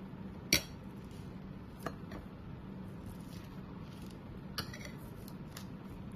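A few light clicks and knocks of a spoon and china plates on the table as a spring roll is wrapped by hand, the sharpest about half a second in and smaller ones near two and four and a half seconds, over a low steady hum.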